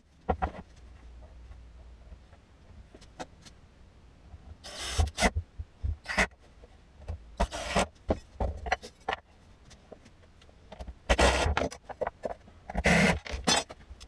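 Workshop handling sounds: scattered light knocks and clicks, with several short scraping or rubbing bursts, as MDF panels are moved and positioned on a wooden desk top.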